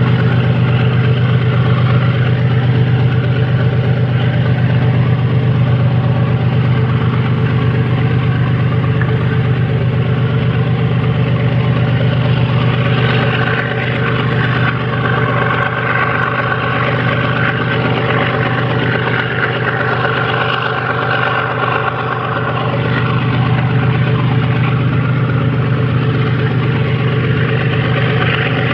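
GE ES43BBi diesel-electric locomotive's 12-cylinder GEVO engine running with a steady, deep drone. A higher sound joins for several seconds midway, while the drone dips a little.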